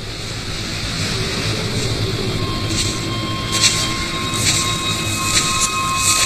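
Steady rushing wind on an open moor, swelling slightly. From about halfway come footsteps swishing through long dry grass, roughly one a second. A faint high held tone enters about a third of the way in.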